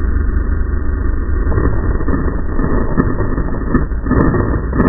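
Racing snowmobile engine running steadily, heard through a helmet-mounted camera. From about a second and a half in, gusty rustling and a few sharp taps come over it, louder toward the end.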